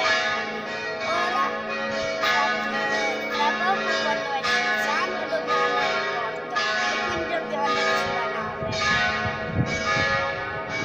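Church bells ringing a festive peal, a new strike about once a second with the tones overlapping and ringing on.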